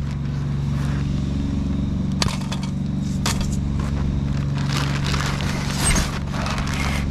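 A truck engine idling with a steady low hum, with scattered clatter and rustle of junk being handled and shifted.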